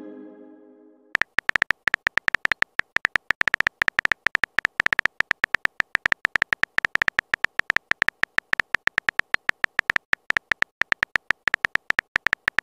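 Simulated phone-keyboard typing clicks from a texting app, a fast steady run of short key taps. A ringing tone fades out in the first second before the typing starts.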